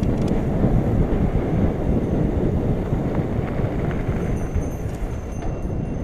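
Mountain bike riding over a dirt trail: a steady rumble of tyres and rattling bike, with wind buffeting the helmet or handlebar camera's microphone and a few faint clicks.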